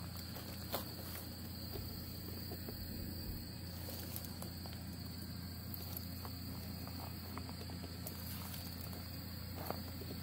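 Crickets trilling steadily on one high pitch, with a few faint clicks from a wrench being worked on a bolt.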